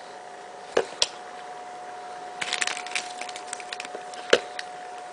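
Handling noise: two sharp knocks about a second in, a flurry of small clicks and rattles in the middle, and one more sharp knock near the end, over a faint steady whine.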